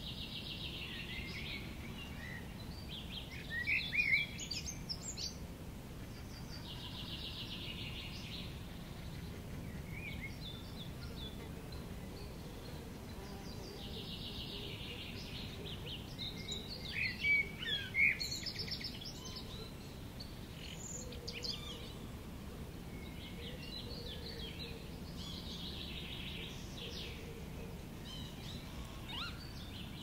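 Wetland birds singing over steady wind noise. One bird repeats a trilled phrase of about a second and a half, every six to eight seconds. Other birds add sharper chirps, loudest about four seconds in and again around seventeen to eighteen seconds.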